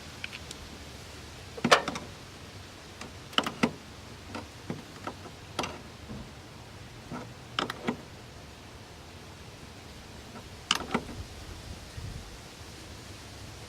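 Scattered sharp clicks and knocks of hand tools working on a van's positive battery terminal, the loudest about two seconds in and again near eleven seconds.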